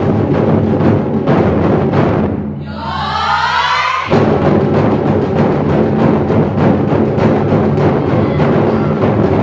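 Taiko ensemble drumming: barrel-shaped chū-daiko on slanted and upright stands struck with bachi sticks in fast, dense rhythm. The drumming breaks off about two and a half seconds in, with a short sweeping pitched sound in the gap, and all the drums come back in together about four seconds in.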